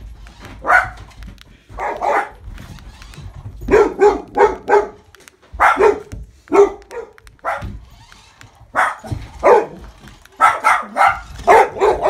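Dog barking at a remote-control rat toy: many short, sharp barks in quick runs of two to five, with brief pauses between the runs.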